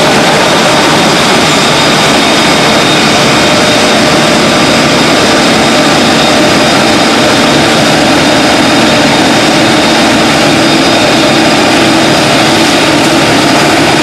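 Claas Lexion 480 combine harvester running steadily and loudly: a dense, unchanging machine noise with faint steady whines on top.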